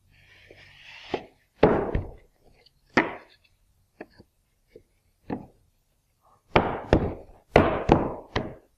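Wooden door-frame parts being dry-fitted around a raised panel: a short scraping slide as the panel goes into the frame's grooves, then a series of about ten sharp wooden knocks and taps as the rails and stiles are set against it and pushed home, several of them close together near the end.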